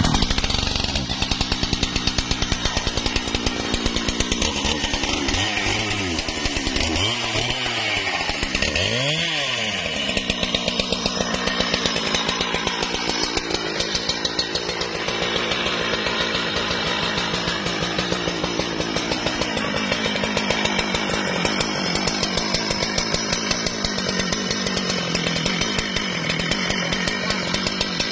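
Husqvarna 395 XP chainsaw, a large two-stroke, running loud and continuously. Its engine pitch swings up and down several times about five to ten seconds in, then it holds a steady high-revving run.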